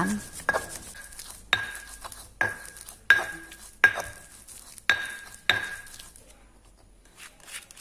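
Stone pestle grinding ginger, garlic and candlenuts into a paste in a stone mortar (cobek and ulekan): rubbing and scraping, with sharp knocks of stone on stone about once a second, each ringing briefly. The knocks stop about six seconds in.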